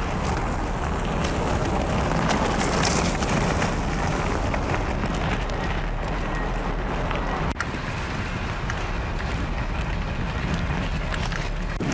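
Hardtail electric mountain bike rolling over a dirt and gravel trail, picked up by a handlebar-mounted camera: a steady rush of tyre noise and rattle through the bars, with wind on the microphone.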